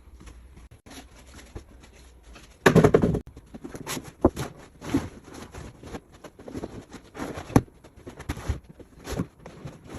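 Sheet of vinyl floor covering, wet underneath, being folded up by hand: irregular crackles, rustles and slaps, with a louder rustling burst about three seconds in.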